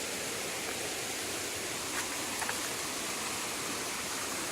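Waterfall and stream running: a steady, even rush of falling water, with a couple of faint clicks about halfway.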